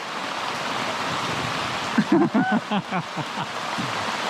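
Heavy rain pouring down in a steady hiss. A person's voice speaks briefly about halfway through, louder than the rain.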